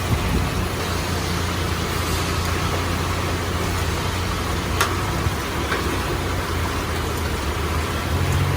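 A motor vehicle engine idling steadily under a constant hiss, with one sharp click about five seconds in and the hum growing louder near the end.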